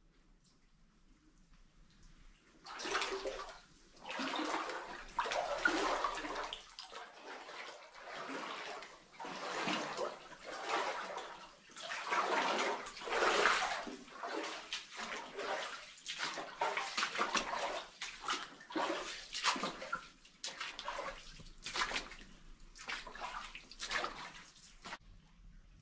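Footsteps sloshing through shallow water on a mine tunnel floor, an uneven splash about once a second that starts a few seconds in and keeps on to the end, with echo from the rock walls.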